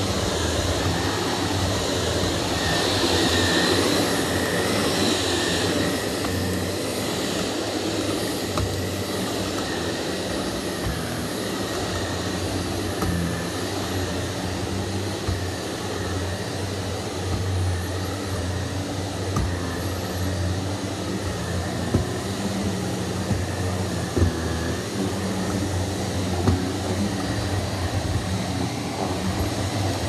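Shark Navigator Lift-Away Professional upright vacuum cleaner running steadily as it is pushed back and forth over a rug, with a few short sharp clicks in the second half.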